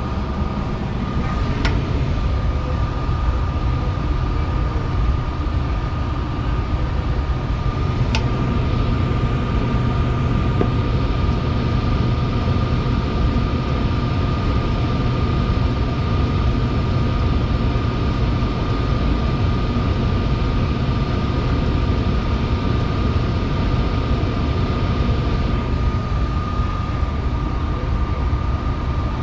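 Rheem gas furnace running: a steady machine drone with a thin high whine over it, and a single sharp click about a second and a half in and another around eight seconds.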